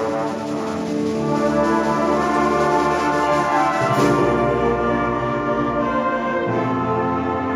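Student orchestra of strings and brass playing a full, loud passage of held chords. About four seconds in, a drum hit sets off a low rumble lasting a couple of seconds.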